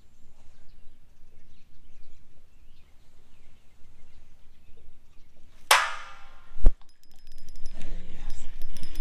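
A sudden metallic clang that rings and fades over about half a second, a dull thump about a second later, then fast fine clicking near the end, from the angler's fishing rod and reel being handled.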